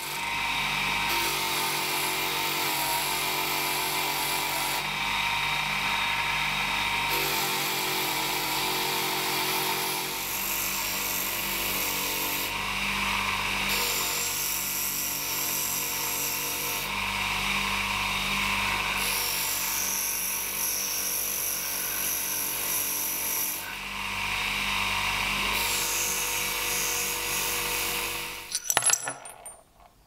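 Bench grinder running with its wheel rubbing against a metal lighter case pressed into it, cleaning off rust: a steady motor hum under a loud grinding rub. It stops near the end, followed by a few clicks.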